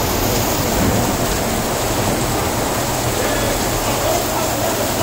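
Steady rain falling, a dense even hiss that stays level throughout.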